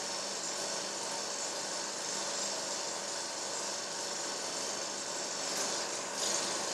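Steady mechanical whirring with a hiss and a faint even hum, unchanging throughout, with a brief swish about six seconds in.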